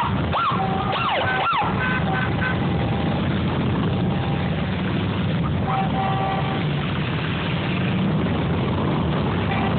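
A column of cruiser motorcycles riding past, their engines making a steady rumble. For the first second and a half a siren yelps, rising and falling about three times a second, and short horn toots sound about two and six seconds in.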